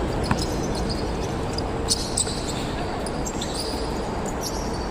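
A basketball bouncing on the court during play: a few sharp thuds over a steady background of noise.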